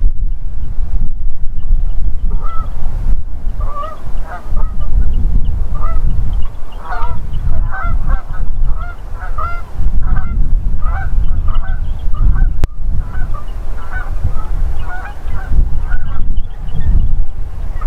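A flock of geese flying over, honking in many short overlapping calls that build after a couple of seconds, are thickest in the middle and thin out near the end. Heavy wind rumble on the microphone runs underneath and is the loudest part.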